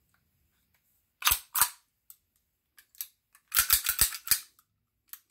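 Sharp metal clacks of a Detonics Pocket 9 pistol's slide and frame being fitted back together by hand: two clacks about a second in, then a quick run of clicks around four seconds in, and one more near the end.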